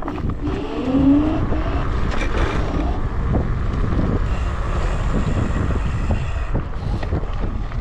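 Wind rumbling and buffeting over an action camera's microphone while riding an electric scooter, with road noise from the scooter underneath.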